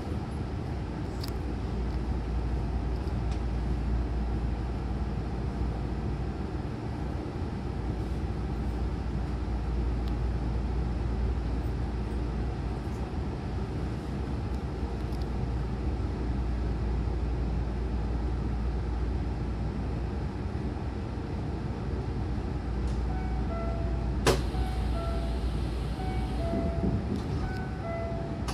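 Hankyu train car standing at a platform with its doors open: a steady low hum from the stopped train. Near the end come a sharp click and a run of short electronic tones, then the doors slide shut.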